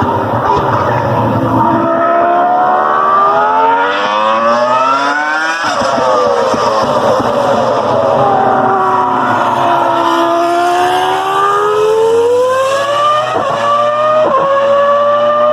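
A Formula 1 car's engine under hard acceleration and braking, its pitch climbing for several seconds, dropping sharply, sinking, then climbing again. Two quick dips near the end are upshifts, after which it holds a high note.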